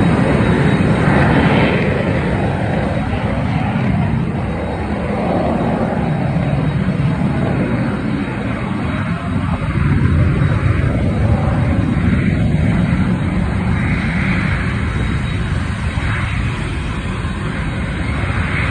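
Jet aircraft engines running: a loud, steady rumble with a hiss above it that swells and eases slightly.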